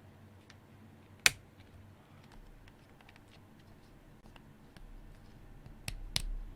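Mechanical keyboard parts being handled and fitted together during assembly. There is one sharp, loud click about a second in, scattered light plastic ticks, and two more clicks near the end over a low handling rumble.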